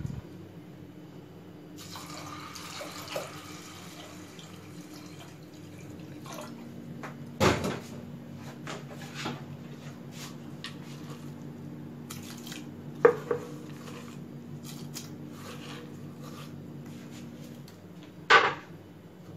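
Water poured into a steel pressure cooker over dal, followed by three sharp knocks of steel cookware about five seconds apart, with a low steady hum underneath.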